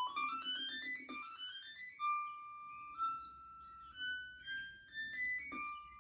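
Commodore 128's SID sound chip playing music from the BASIC PLAY command: a fast rising run of notes, then slower single notes stepping up and down over a buzzy lower tone.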